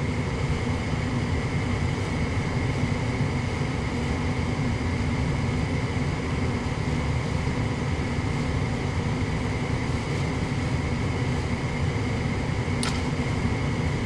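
Lennox EL180 gas furnace's combustion air inducer motor running steadily with a constant whine. Near the end comes a single sharp click, one of the weird clicks of an ignition attempt that fails because the gas valve has failed.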